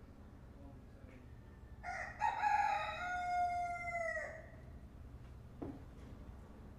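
A rooster crowing once, a call of about two and a half seconds that drops in pitch at the end.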